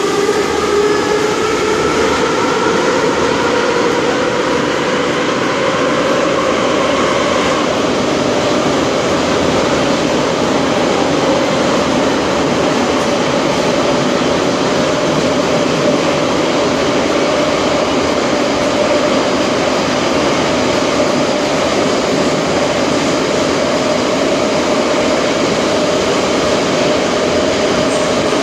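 Inside an Ezh3 (Em-508T) Moscow metro car on the move: loud running noise of the wheels on the track, with a motor whine that rises in pitch as the train picks up speed over the first several seconds and then holds steady at cruising speed.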